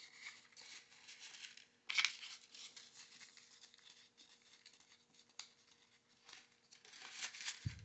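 Printer paper rustling and sliding under the fingers as small strips are rolled into tight spirals by hand, with a sharper crinkle about two seconds in.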